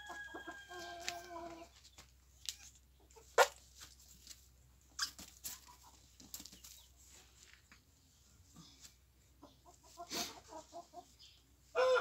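Chickens calling: a drawn-out call in the first second and a half, then a quick run of clucks near the end. Scattered clicks and rustles come from a hen being held and handled, the loudest a sharp click a few seconds in.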